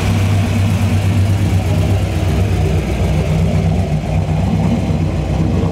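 V8 engine of a classic Chevrolet Chevelle rumbling steadily as the car rolls slowly past.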